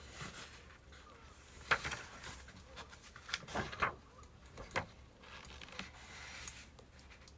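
Birch firewood burning, crackling with a handful of sharp pops over a soft hiss.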